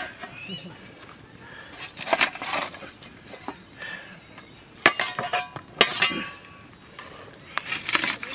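Steel shovel scraping into a campfire's bed of hot stones and embers and tipping the stones into an earth pit. Sharp clinks and knocks of stone on stone and on the shovel blade come in several bunches.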